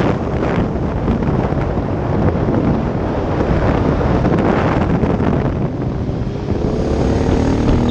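Heavy wind noise on the microphone of a motorcycle-mounted camera at road speed, with the bike's engine running underneath; the engine note comes through more clearly and rises near the end.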